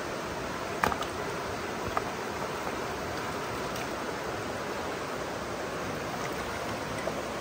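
A shallow rocky stream running steadily. Two short sharp knocks come about one and two seconds in, as aluminium beer cans are set down among the stones in the water.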